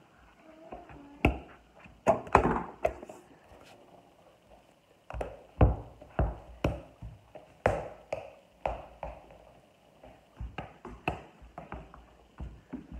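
Soccer ball being juggled by a barefoot player: a run of irregular dull thuds from bare-foot touches on the ball, with the ball and feet landing on the floor.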